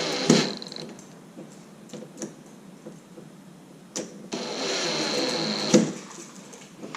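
Power drill driving a deadbolt's mounting screws in two runs with a steady motor whine: a short one at the start and a longer one of about a second and a half from about four seconds in, with small clicks of handling between.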